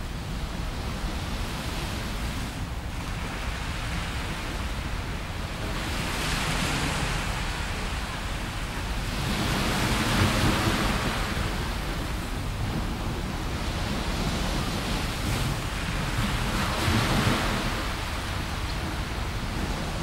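Small waves breaking and washing up onto a sandy beach from a calm sea, the surf swelling in hiss three times, over a steady low rumble.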